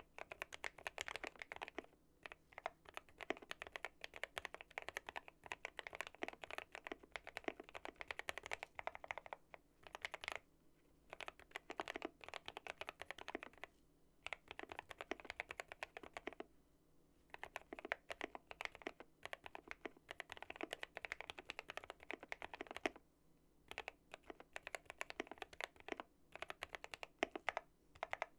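Typing on a modded GMMK Pro mechanical keyboard with linear switches, a polycarbonate plate and PE foam: fast runs of keystrokes broken by brief pauses about two, ten, fourteen, sixteen and twenty-three seconds in.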